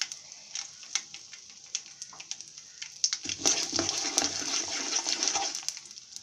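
Hot sesame oil sizzling and crackling in a kadai during tempering, with mustard seeds, curry leaves and asafoetida frying in it. The sizzle swells louder about three seconds in and drops back near the end.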